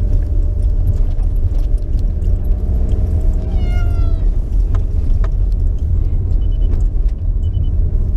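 A domestic cat meows: one drawn-out cry that falls in pitch about four seconds in. Under it runs a loud, steady low rumble.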